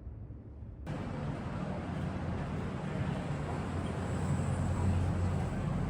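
Steady low rumble of vehicle or traffic noise, starting abruptly a little under a second in after a duller, muffled stretch.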